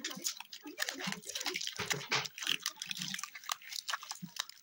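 Clear plastic film crinkling and crackling as it is handled and crumpled by hand, a steady run of small irregular crackles.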